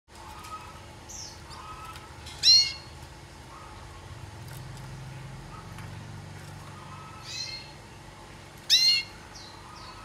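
Pet canaries calling: two loud, sharp calls that drop in pitch, one a couple of seconds in and one near the end, with a few fainter chirps between.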